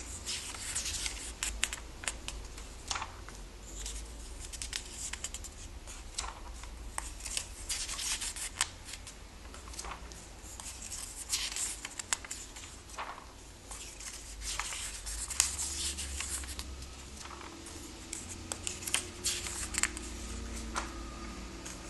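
Comic-book pages being turned by hand one after another, with quick, irregular paper rustles and flicks.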